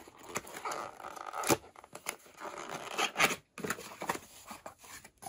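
A cardboard box being opened by hand: a run of short scrapes and rustles as the flaps and inner packaging are pulled open, the loudest about one and a half seconds in and around three seconds in.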